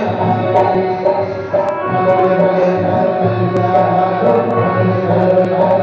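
Live Indian stage music: a sustained held melody over hand-drum strokes.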